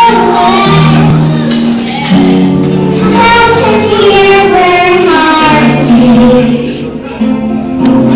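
A young girl singing into a microphone over backing music, her voice amplified through a PA speaker.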